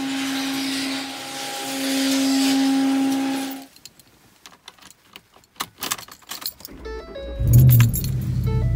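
A steady hum with hiss for the first few seconds, then keys clicking and jingling at the ignition, then a pickup truck's engine cranking and starting about seven seconds in and running on.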